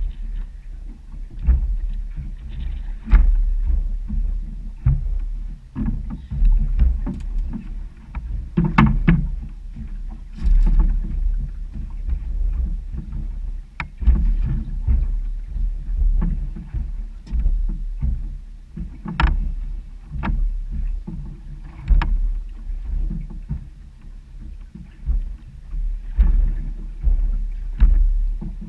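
Choppy waves slapping against a small open boat's hull, with irregular low rumbling surges and scattered sharp knocks.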